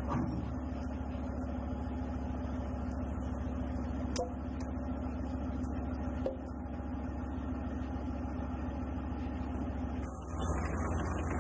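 Leopard bridge-laying tank's diesel engine running steadily as it lays its bridge, with two sharp metallic knocks about four and six seconds in. Near the end the sound turns louder and noisier, to the rumble of a tank's tracks and roadwheels rolling.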